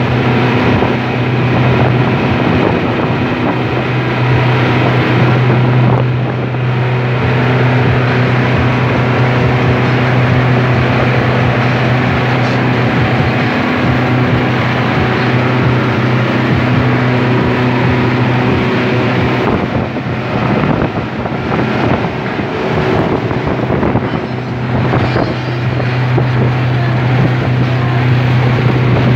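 Motorboat running at speed: a steady low engine drone over the rush of water, with wind noise on the microphone.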